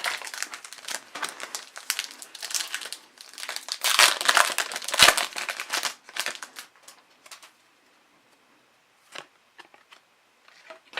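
Hockey card pack wrapper crinkling as it is handled and torn open, busiest about four to five seconds in, then a few soft clicks.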